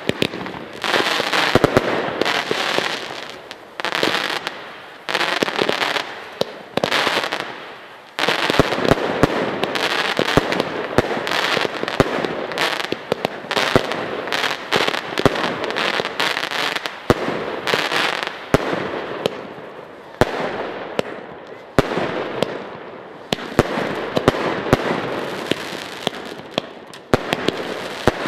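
Zena consumer fireworks in a finale barrage: firework batteries firing in rapid succession, with many sharp bangs over continuous crackling. It eases off briefly a few times, then builds again.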